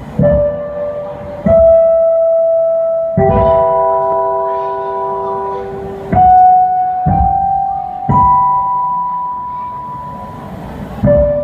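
Slow instrumental music with sustained, bell-like keyboard notes; a new note or chord enters every one to three seconds, each with a low thud at its start.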